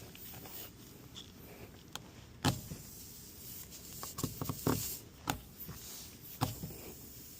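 Irregular knocks and clicks of hand tools being handled at a punctured tire during a plug repair, a sharp one about two and a half seconds in and a quick cluster a little later.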